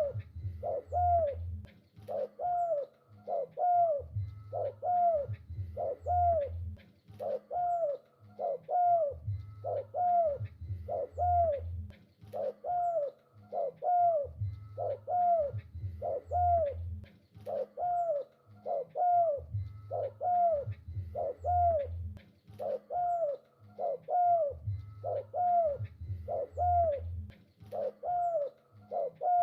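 Spotted dove cooing over and over, the same short phrase of low, rounded coos repeating about every two seconds.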